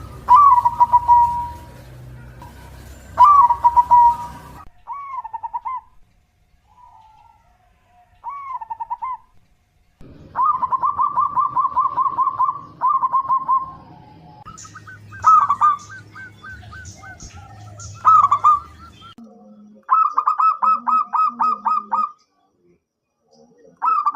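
Zebra dove (perkutut) calling: repeated bursts of quick cooing notes, some run together in rapid trains of about eight a second, with a low rumble under parts of it.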